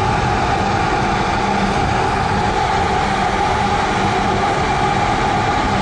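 A fishing trawler's machinery running steadily, heard on deck beside the funnel casing: a constant drone with a steady hum underneath.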